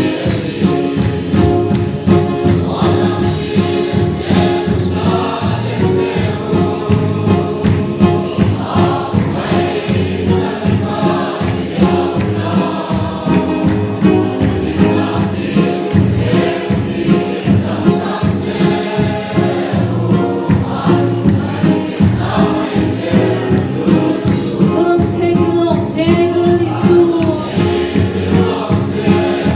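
A congregation singing a hymn together in chorus, men's and women's voices, over a steady, evenly repeated drumbeat.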